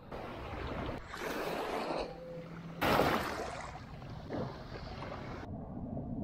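Shallow seawater sloshing and small waves washing, with the loudest wash about three seconds in. The sound changes abruptly between shots and turns muffled near the end.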